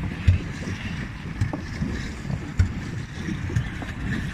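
Wind rumbling on the microphone aboard a small plastic pedal boat on a lake, with a few dull thumps, the strongest just after the start and again a little past halfway.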